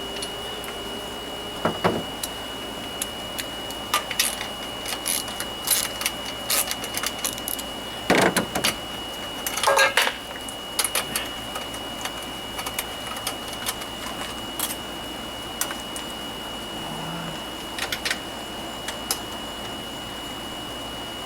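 Scattered metallic clinks, rattles and scrapes of hand tools and mower parts being handled while the lawnmower's recoil starter is taken apart, with a louder rattle about eight seconds in and again near ten seconds. A faint steady high-pitched whine runs underneath.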